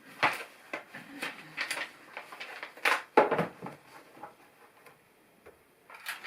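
Plastic LEGO pieces clicking and rattling as they are handled and sorted, a string of short sharp clicks and rustles that goes quiet for about a second near the end.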